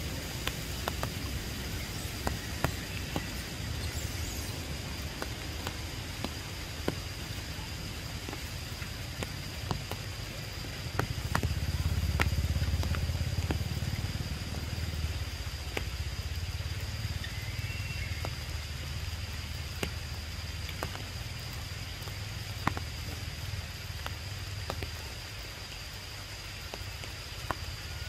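Rain in the forest canopy: a steady hiss with scattered sharp drips, under a low wind rumble on the microphone that swells about halfway through. A thin steady high tone runs underneath.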